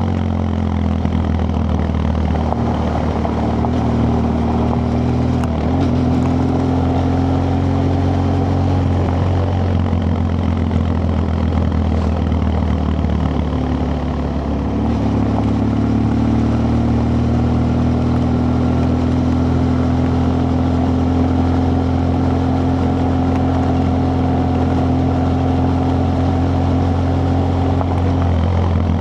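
BMW F 800 GS parallel-twin engine and original exhaust running steadily while riding. The engine note dips briefly about halfway through, then climbs slowly as the bike gathers speed.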